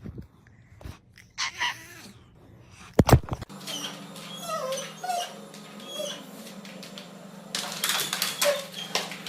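A dog whimpering and giving short yips, with a loud knock about three seconds in.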